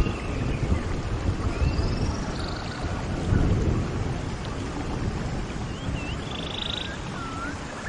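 Relaxing nature-sound ambience: a steady low rumble under an even hiss, with short whistled chirps and buzzy trills now and then.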